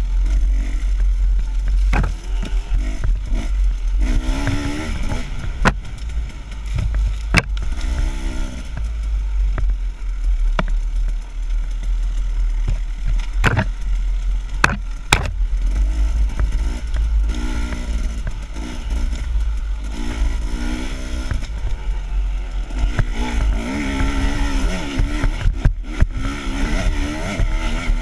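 KTM dual-sport motorcycle engine revving up and down as the bike is ridden over a rough dirt trail, with a heavy wind and vibration rumble on the bike-mounted camera and sharp knocks as it hits bumps, several of them in the middle of the stretch.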